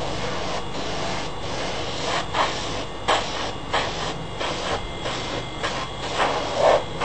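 Airbrush spraying primer in short, irregular hissing bursts over the steady hum of a small airbrush compressor.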